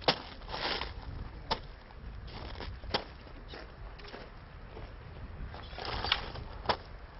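Footsteps and shuffling on a gravel path: a few sharp clicks at irregular intervals, with short crunching noises in between.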